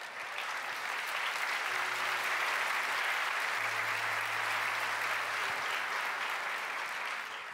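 Congregation applauding: steady, dense clapping throughout.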